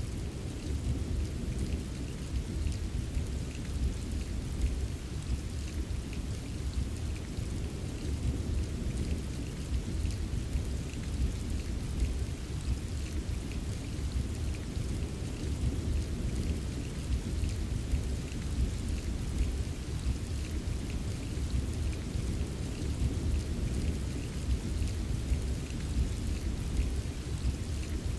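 Steady rain ambience: a continuous deep rumble underneath, with a scattering of small drip ticks on top. The sound holds even throughout, with no single thunderclap standing out.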